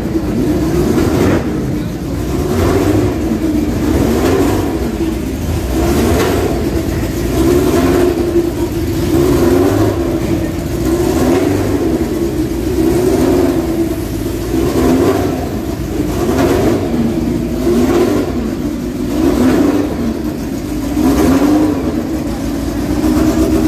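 A race car's engine running in the paddock and being blipped over and over, its pitch rising and falling every second or two. The engine is warming up.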